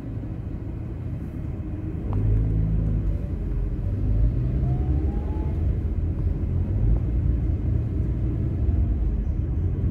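Low engine and road rumble of a car driving through town, heard from inside the cabin, growing louder about two seconds in.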